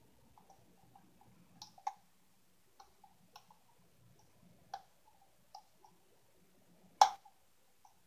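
Steel lock pick clicking against the pin tumblers of a five-pin Union mortise cylinder held under top-of-keyway tension, as the pins are picked one by one. Scattered light clicks, a sharper one a little under two seconds in, and the loudest single click about seven seconds in.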